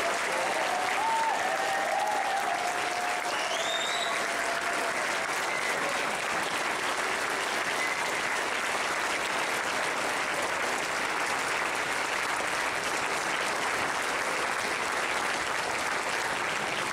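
Large audience applauding steadily and without a break.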